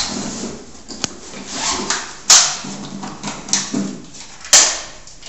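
Handling noise from an M4-style rifle being assembled on a tiled floor: rustling and small clicks, with two sharp clacks about two seconds apart.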